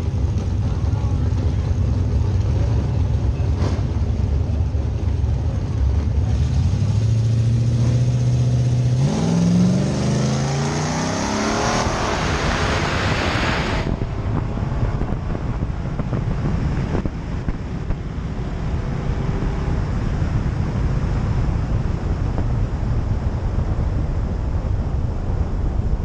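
Drag car's engine idling on the start line, then about nine seconds in it launches and revs up, its pitch climbing for several seconds until the sound drops away sharply around fourteen seconds in. After that, a steady rush of wind and road noise on the microphone as the Tesla P85D carrying it runs down the drag strip.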